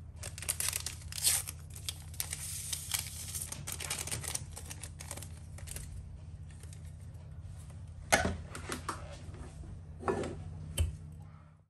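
Small paper packet of vanilla sugar torn open and crinkled in the hand, with dense crackling through the first half, over a low steady hum. A couple of louder knocks follow, about eight and ten seconds in, as a hand mixer is handled.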